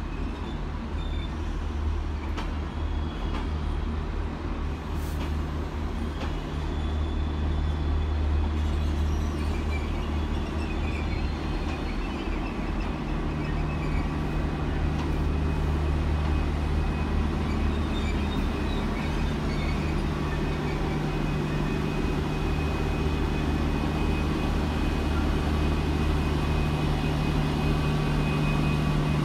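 Irish Rail 201 class diesel locomotive, its EMD 12-710 engine running with a steady low drone, as the train rolls slowly into the platform. The engine grows gradually louder as the locomotive draws near.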